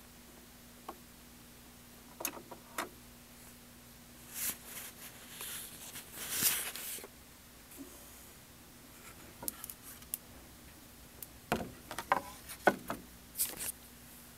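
No music playing: a faint steady hum with scattered sharp clicks and rustling, a longer rustle around the middle and a cluster of clicks near the end, while the turntable's tonearm sits on its rest off the record.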